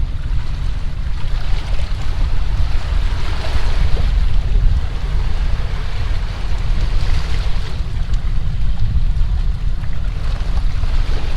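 Wind buffeting the microphone: a heavy low rumble, with gusts of hiss that swell and fade every few seconds.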